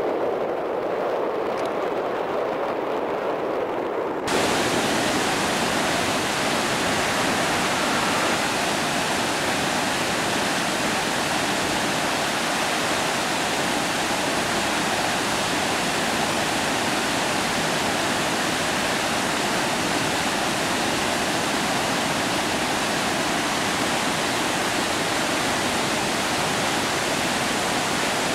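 A small mountain stream cascading over boulders: a steady, even rush of water that starts abruptly about four seconds in. Before it comes a softer wind-and-road noise from a moving vehicle.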